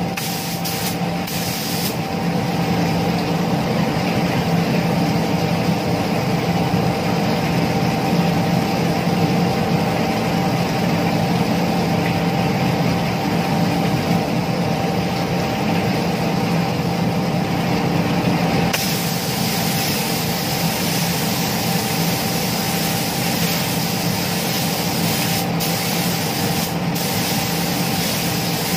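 Gravity-feed spray gun hissing as paint is sprayed onto motorcycle fairing panels, over the steady rush and hum of a water-curtain spray booth. The spray hiss breaks off briefly near the start and twice near the end.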